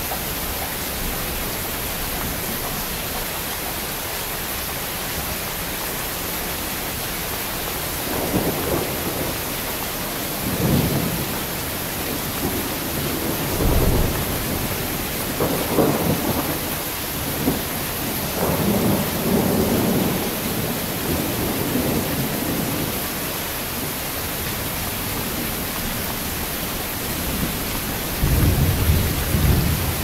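Heavy rain falling steadily, with thunder rolling in several rumbling surges from about a third of the way in until about two-thirds of the way in, and another low rumble starting near the end.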